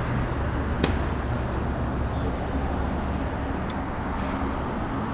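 City street traffic noise heard while riding a bicycle, a steady wash of sound with a low vehicle rumble fading early on. A single sharp click comes about a second in.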